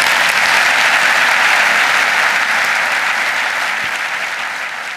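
Audience applauding, a steady wash of clapping that slowly fades near the end.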